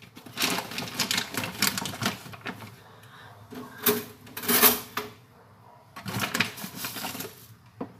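Crinkling and rustling of a bag of ground coffee being handled and opened, in irregular bursts with short pauses between them.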